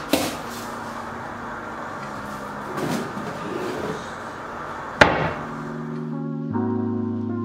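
Kitchen storage being handled at a wooden wall cabinet over a steady background hiss: a couple of light clicks at the start, some rustling and shifting around the middle, and one sharp knock about five seconds in, the loudest sound, as the cabinet is worked.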